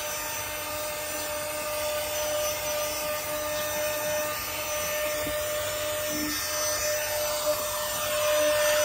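Handheld cordless car vacuum running steadily, a high motor whine over a hiss of rushing air, as its nozzle is pushed over the car's floor carpet sucking up sand and dust.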